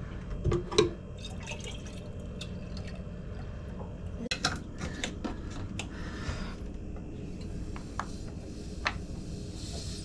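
Water dripping and trickling from a bottle poured into a marine diesel's cooling-water fitting, with scattered light clicks and taps of a screwdriver and metal fittings on the raw-water pump.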